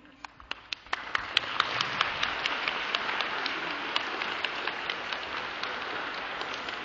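Audience applauding: a few scattered claps at first, then steady applause from about a second in, with single sharp claps from clappers close by standing out.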